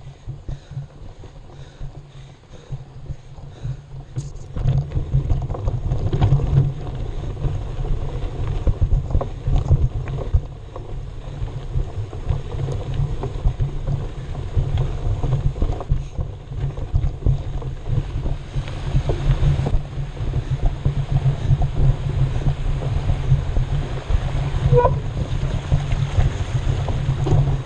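Wind buffeting the microphone: a low, gusting rumble that grows louder about four seconds in.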